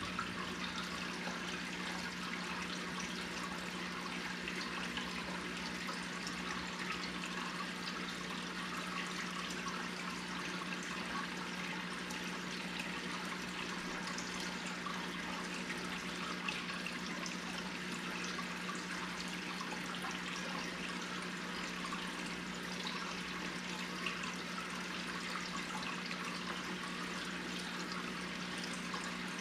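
Aquarium filter and air bubbles, water trickling and bubbling steadily, over a steady low hum from the pump.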